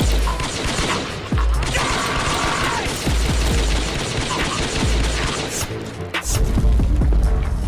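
Bursts of rapid gunfire sound effects with heavy booms, over background music.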